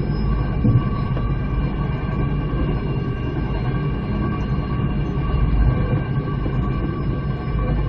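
Moving passenger train, heard from inside the carriage: a steady rumble of wheels on track with a constant high whine of several steady tones over it.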